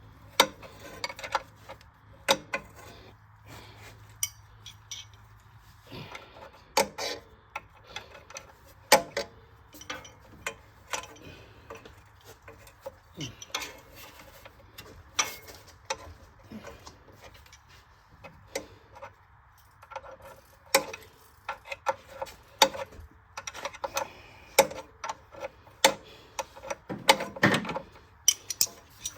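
Hand tools clinking and knocking against metal car parts: scattered, irregular sharp metallic clicks and clanks.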